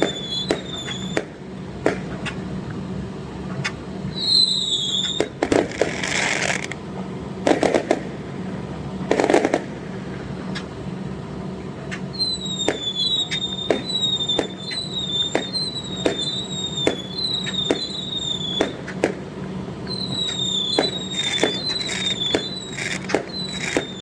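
Fireworks going off: a string of sharp bangs and pops mixed with many short, slightly falling whistles, coming about twice a second for long stretches, and a few bursts of crackling about five to ten seconds in.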